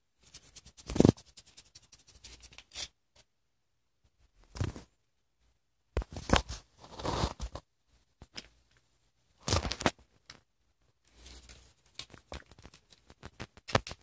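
Crinkly Lemona vitamin-C stick sachet crackling and rustling in irregular bursts as a cat bites and bats at it, with short quiet gaps in between.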